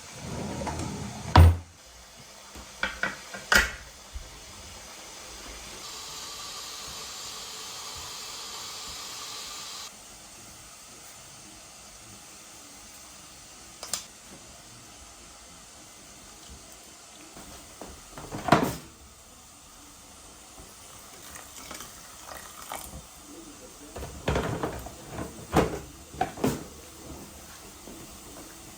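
Kitchen work sounds: pots, dishes and utensils knocking and clattering at intervals, with a steady hiss lasting a few seconds that cuts off suddenly.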